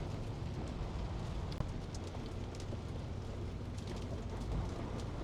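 Rain hitting a truck's windshield and cab as scattered sharp ticks over an even hiss, heard inside the cab with the steady low drone of the engine and road underneath.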